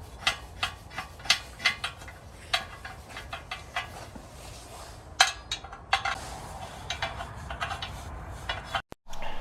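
Small metal parts clinking and tapping against a metal cooking disc as thumb screws and legs are fitted by hand: a string of irregular sharp clinks with a slight ring.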